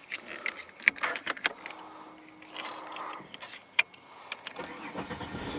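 A set of car keys jangling and clicking in quick, irregular rattles. A low hum comes in near the end.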